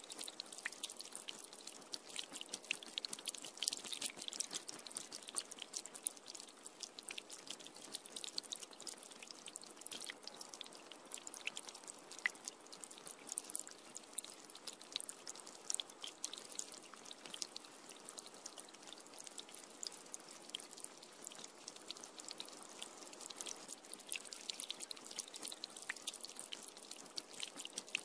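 Rain falling on an umbrella: a steady, dense spatter of small drop taps that keeps up without a break.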